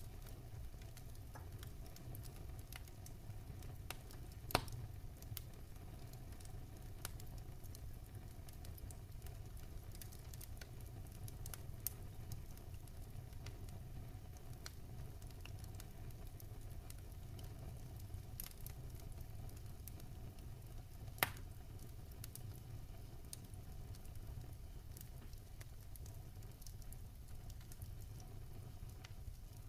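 Faint steady low rumble with scattered soft crackles and a few sharper clicks.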